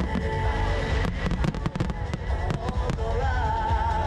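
Fireworks shells bursting, a rapid run of sharp bangs through the first half, over loud music with a melody line coming in near the end.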